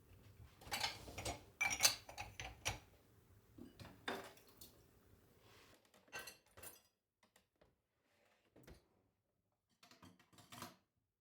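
A string of light clicks, taps and clatters of small hard objects being handled, busiest in the first three seconds, then only scattered taps.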